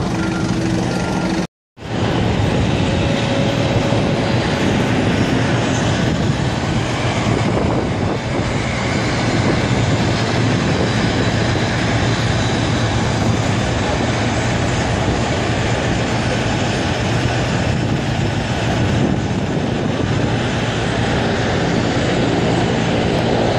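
Steady, loud rumbling noise of a moving vehicle, broken by a brief cut to silence about a second and a half in.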